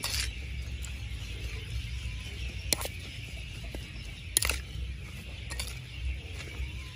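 Metal cooking utensils clinking sharply against cookware a few times over a steady low rumble.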